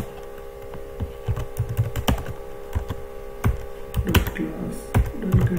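Typing on a computer keyboard: irregular keystroke clicks, in short runs with pauses, as code is entered. A steady low hum runs underneath.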